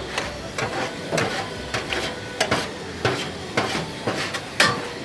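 Irregular sharp clacks and knocks of metal kitchen utensils while a shawarma is being prepared, about ten strikes with the loudest near the end.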